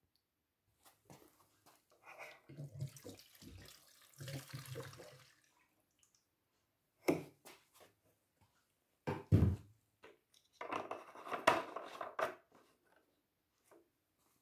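Petrol being poured into a push lawnmower engine's fuel tank in two short spells, with two sharp knocks in between.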